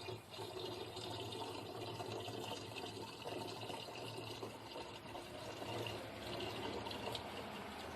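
Premixed 50-50 green antifreeze coolant poured slowly and steadily from its bottle into the engine's cooling system, a continuous liquid fill sound.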